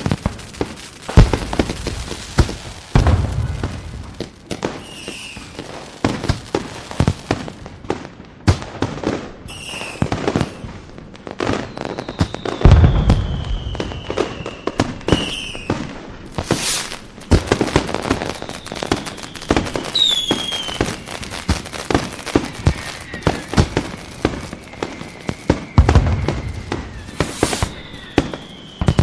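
Fireworks display: dense crackling and popping, with deep booms a little after the start, about three seconds in, about halfway and near the end. Several whistles glide slowly downward in pitch.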